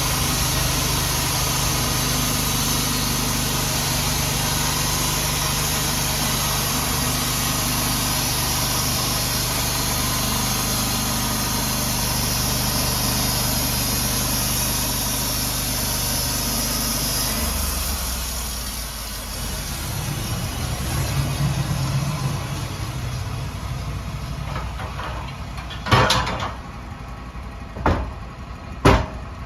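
An engine running steadily, its note changing about two-thirds of the way through, with a few sharp knocks near the end.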